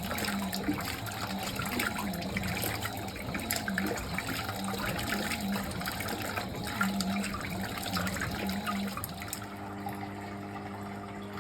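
Fisher & Paykel top-loading washing machine with water splashing and trickling in the tub over a low motor hum. Near the end the splashing dies away, leaving a steady hum.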